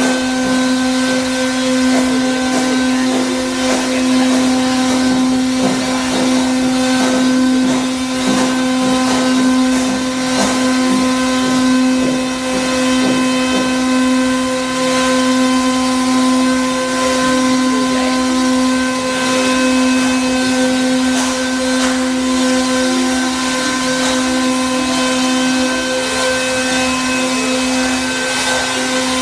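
Air-cooled 3 kW spindle of a CNC router running, a steady whine with a stack of overtones, with irregular clicks and crackles throughout.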